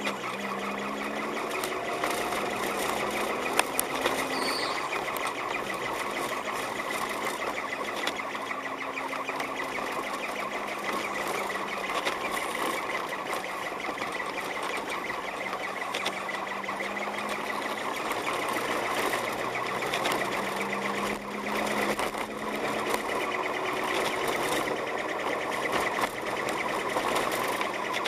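Car driving on a snow-covered road, heard from inside the cabin: a steady dense noise from engine, tyres and road, with a low engine hum that slowly rises and falls in pitch. A couple of brief knocks come about three and a half seconds in.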